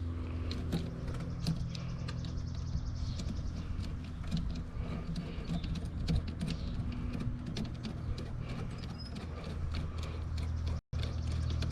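Irregular small clicks and taps of a screwdriver working on the intake's hose clamp and fittings, over a steady low hum. The sound drops out for an instant near the end.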